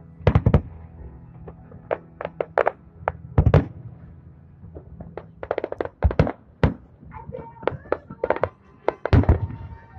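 Aerial fireworks shells bursting in an uneven series of sharp bangs, some in quick clusters, with the loudest near the start, about three and a half seconds in, and near the end.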